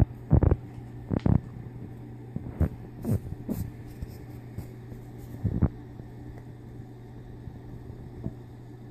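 Two cats wrestling on carpet: scattered soft thumps and rustles from their scuffle, most of them in the first few seconds, over a steady low hum.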